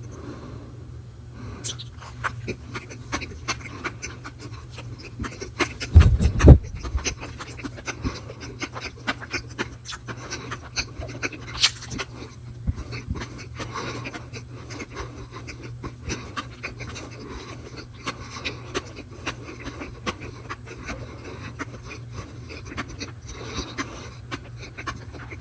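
Close-miked chewing and mouth sounds, with many small wet clicks and crackles and breathing. A steady low hum runs underneath, and a loud low thump comes about six seconds in.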